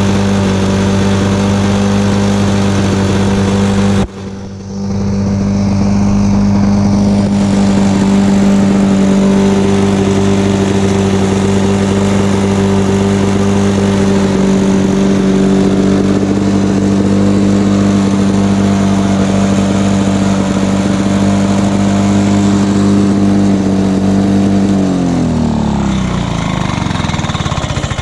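Lawn-Boy two-stroke push mower engine running steadily. About four seconds in it briefly drops out nearly to a stall and picks back up, and near the end it is shut off and winds down with a falling pitch.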